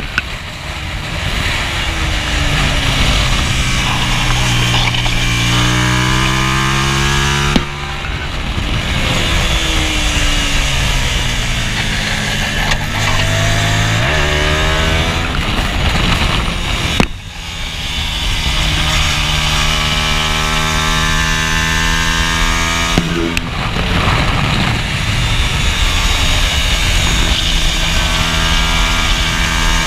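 Hyosung race motorcycle's engine under hard acceleration on track, its note climbing again and again as it runs up through the revs, with sudden drops as the rider changes gear or shuts the throttle. About halfway through the note falls away sharply and then builds back up. Heavy wind rush sits over the engine on the body-mounted camera microphone.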